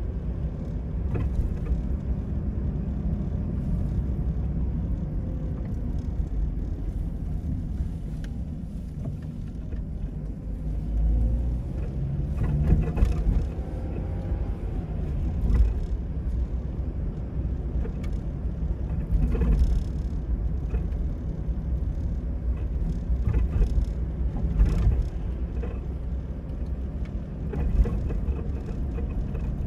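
A car driving at low speed, with a steady low rumble of engine and tyres on the road. A few brief louder knocks come through at intervals.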